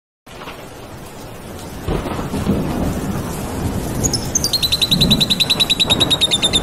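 Rain with low rumbles of thunder, fading in and growing louder. From about four seconds in, a high chirping repeats rapidly, about ten times a second.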